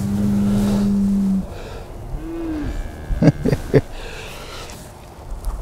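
Cow mooing: one long, steady, low moo in the first second and a half, then a short rising-and-falling call. About three seconds in come three sharp knocks in quick succession.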